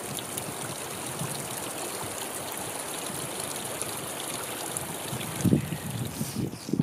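Small ice-fringed mountain stream trickling and splashing over rocks, a steady rush of water. Low buffets of wind on the microphone come in about five and a half seconds in and again at the end, louder than the water.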